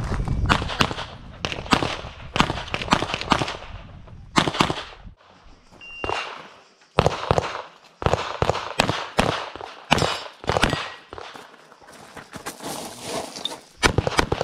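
Strings of pistol shots in quick succession, several a second, broken by short pauses. About six seconds in there is a short single beep, typical of a shot timer, and the firing starts again soon after.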